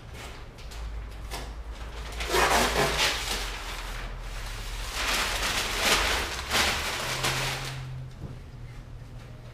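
A large paper sheet rustling and crackling as it is peeled off a car bonnet and bunched up, in two loud spells about two and five seconds in, over a low steady hum.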